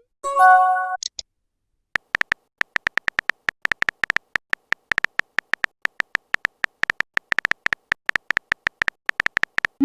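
Phone keyboard typing sound effect: quick, uneven runs of short identical clicks, several a second, pausing briefly about a second in. A short multi-note message chime sounds just after the start, and a rising swoosh begins at the very end.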